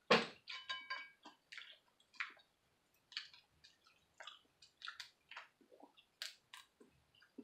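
Boiled crawfish being cracked and peeled by hand: a run of short, wet cracks and squishes of shell breaking and meat pulling loose, with the loudest crack right at the start.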